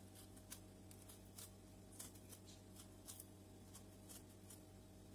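Near silence: faint scattered soft clicks and rustles from fingers peeling the skin off a ripe tomato, over a low steady hum.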